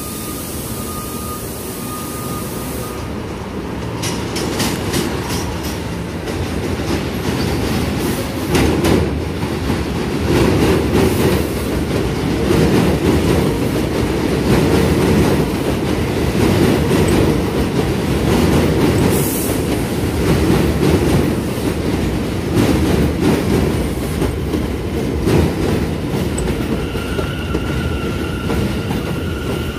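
New York City Subway train pulling into an elevated station: a growing rumble and clatter of steel wheels over rail joints as the cars pass close by. There is a brief hiss about two-thirds of the way through, and a steady high wheel squeal near the end.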